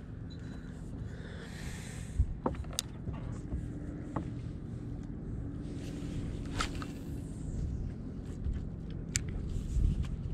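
Low rumble of wind and water around a small fishing boat, with a faint steady hum. A few light clicks and two brief hisses come from a spinning rod and reel being cast and reeled in.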